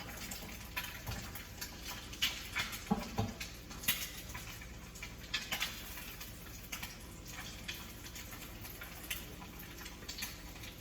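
A goose egg and a chicken egg frying in melted butter in a pan, sizzling with irregular small crackles and pops.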